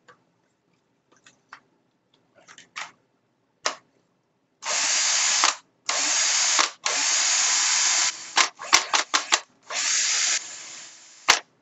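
Bosch GSR 12-2 cordless drill motor test-run on a converted lithium battery whose discharge is now wired directly past the BMS. It runs in a series of trigger pulls: three roughly one-second runs, a few quick blips, then a longer run that drops to a lower speed partway through, without cutting out on start-up. A few light plastic clicks of the housing being fitted together come first.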